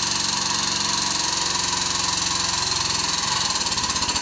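Hydraulic pump of a CH-70 35-ton hydraulic hole punch running steadily, driving the punch into a 3/8-inch steel bar. Near the end the sound begins to pulse, about five times a second.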